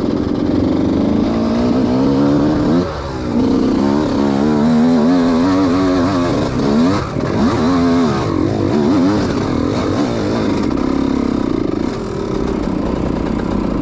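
Dirt bike engine revving hard and unevenly, its pitch swinging up and down again and again with the throttle, with a short drop in loudness about three seconds in.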